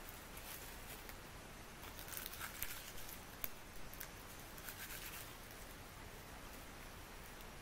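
Fire-lighting by hand: rustling and a cluster of sharp little crackles and clicks from toilet paper and damp kindling being worked into a small campfire. The crackles come between about two and five and a half seconds in, over a steady faint hiss.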